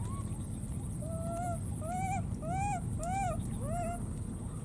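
Baby monkey giving about five short, arched cries in a row, each rising then falling in pitch, over a steady low rumble.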